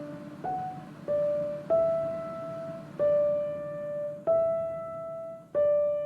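Background piano music: slow single notes struck one at a time, each ringing on as it fades.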